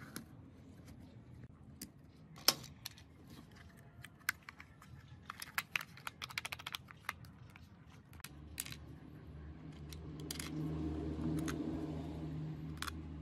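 Plastic battery-pack case being handled and snapped together: scattered clicks and taps, with a quick run of rattling clicks about six seconds in. A low steady hum swells in the second half.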